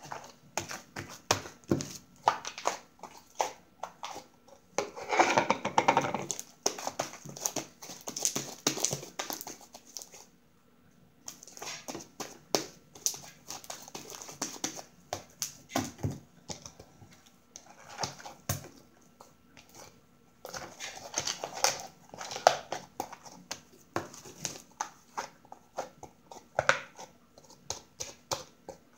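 Homemade white-glue and borax slime, still slightly sticky, being squeezed and kneaded by hand and pulled out of a plastic tub. It makes a dense run of small wet clicks and squelches, with louder bursts of squishing about five, eight and twenty-two seconds in.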